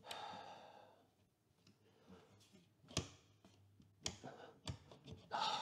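Metal-framed loft access hatch clicking and knocking as its door is pushed and worked in the frame, with scraping in between; the door is sticking in its frame.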